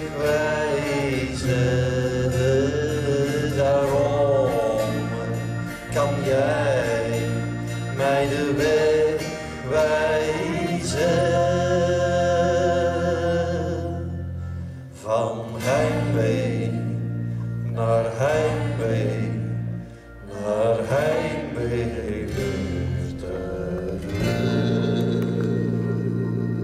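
Live song: a man singing long held, wavering notes over acoustic guitar and a steady low accompaniment.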